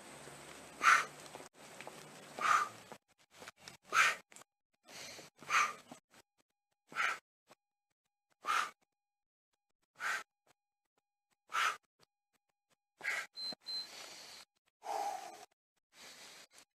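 A person's short, forceful exhales during a bodyweight workout, about one every second and a half, then deeper, heavier breaths near the end as the exertion stops.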